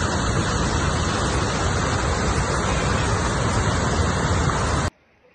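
Loud, steady rush of fast-flowing floodwater. It cuts off suddenly near the end.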